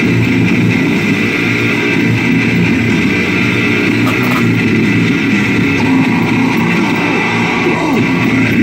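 Rock music with strummed electric guitar playing steadily.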